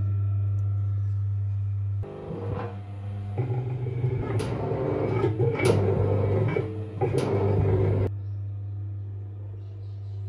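Venco No. 5 pottery wheel's electric motor humming steadily. About two seconds in, the foot pedal engages the cone drive and a louder rumbling run begins, with three sharp clicks. Near the end it falls back to the plain motor hum.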